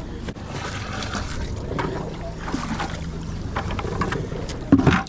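Boat motor running steadily on the water, with wind on the microphone and scattered knocks, and a loud thump just before the end.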